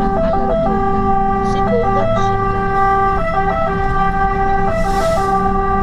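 Fire engine's two-tone siren switching back and forth between a high and a low note, heard from inside the cab over the truck's engine, with a brief hiss about five seconds in.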